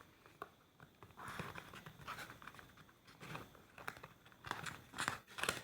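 Faint handling noises of a phone and small tools being worked on: soft rustling and light taps, with a few sharper clicks near the end.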